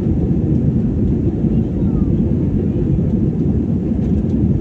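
Airplane taking off: a steady, loud low rumble of its engines.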